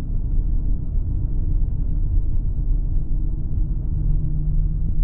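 Pickup truck's engine running with a steady low rumble, heard from inside the cab.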